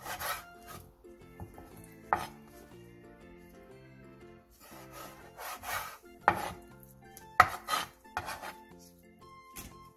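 Kitchen knife slicing raw duck breast on a wooden cutting board: a series of irregular cuts, each ending in a sharp knock of the blade on the board. Soft background music plays underneath.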